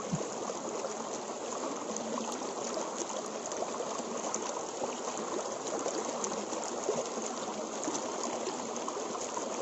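Shallow stream flowing over rock: a steady rush and trickle of running water.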